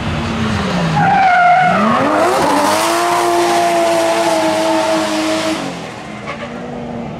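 Drift car's engine revving up hard about two seconds in and held at high revs while the rear tyres skid and squeal through a powerslide, then the revs and tyre noise drop off near the end.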